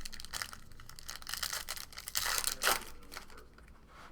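Trading-card pack wrappers being torn open and crinkled, a dense crackling that is loudest a little past halfway.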